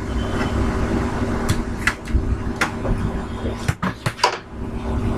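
Handling of small aluminium-framed chalkboards: several sharp clicks and knocks, bunched between about one and a half and four and a half seconds in, over a steady low hum.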